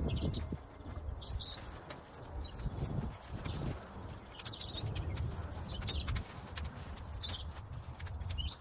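A small bird chirping in short calls about every second, over a low rumble and scattered faint clicks.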